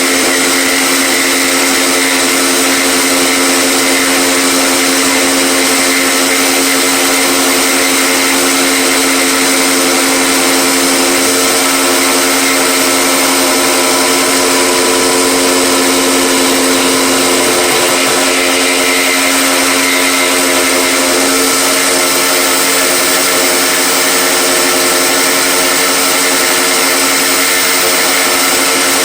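Electric power tool motor running continuously with a steady whine, its pitch shifting a little partway through as the load changes.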